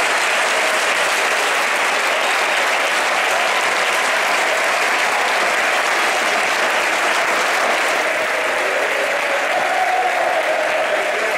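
Large stadium crowd applauding, a steady, dense wash of clapping from thousands of hands.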